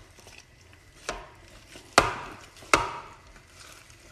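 Ground chicken mixture being worked by a gloved hand in a plastic bowl, with three sharp knocks roughly a second apart, the last two the loudest.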